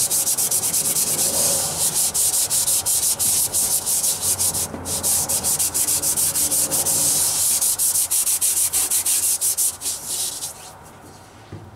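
Scotch-Brite abrasive pad scrubbed by hand against the lower cylinder-liner sealing bore of a Caterpillar D13000 engine block, wet with WD-40, in rapid back-and-forth rubbing strokes. There is a short break about five seconds in, and the scrubbing stops about ten seconds in. This is the sealing surface being cleaned and buffed bright.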